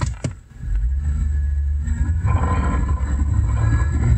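Chevrolet Avalanche pickup under way, heard from under the dash by the brake pedal: a couple of knocks as the phone is pushed into place, then a low steady engine and road rumble. About two seconds in, a rougher buzzing noise joins it and keeps on.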